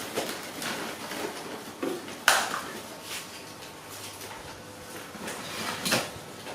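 Household knocks and clatter: a sharp, loud clatter about two seconds in, another knock near the end, and light taps and handling noises between.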